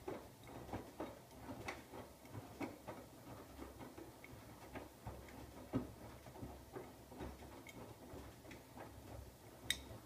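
Siemens iQ700 front-loading washing machine in its wash phase: the drum tumbles a wet load, with water sloshing and irregular soft knocks and clicks over a low rumble. A sharper click comes near the end.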